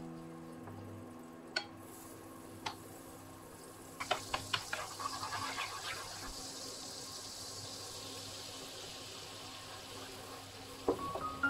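Butter sizzling as it melts and foams in a hot nonstick frying pan. About four seconds in it starts with a quick run of crackling pops, then settles into a steady hiss that slowly dies away.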